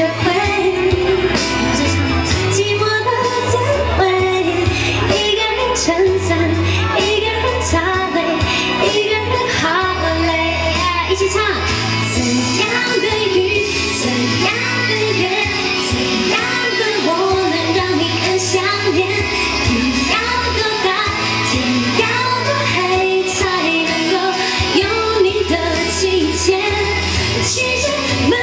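A woman singing a Mandarin pop ballad live into a microphone, with amplified accompaniment that carries a steady bass line and drum beat.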